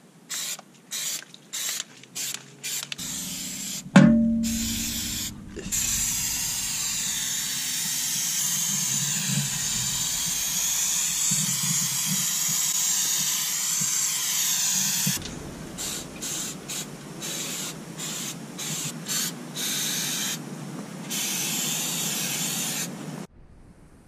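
Aerosol can of Flex Seal spraying: a run of short spritzes, then one long continuous spray of about nine seconds, more short spritzes, and a final longer spray near the end. About four seconds in, a single sharp metallic knock with a brief ringing tone is the loudest sound.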